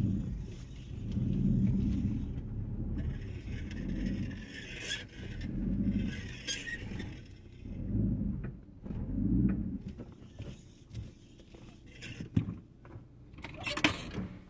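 Low rumble of a car moving slowly in stop-and-go traffic, heard from inside the cabin, swelling and fading every couple of seconds, with a few sharp clicks and rattles near the end.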